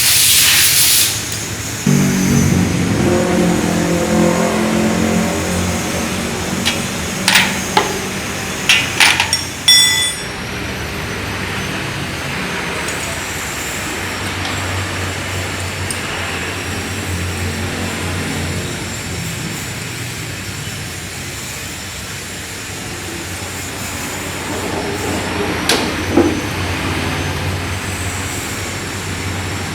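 Suzuki Nex scooter engine and CVT transmission running from about two seconds in, with a few sharp clicks between about seven and ten seconds in. The rough, noisy running is the gearbox noise that the video puts down to worn gearbox bearings.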